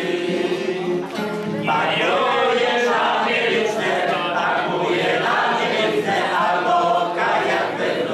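A group of people singing together, several voices at once.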